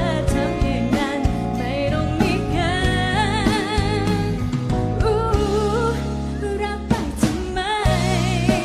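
A woman singing a Thai pop song into a microphone, with a live band of keyboard, electric guitar and drums. Her held notes waver with vibrato, and drum hits stand out around seven seconds in.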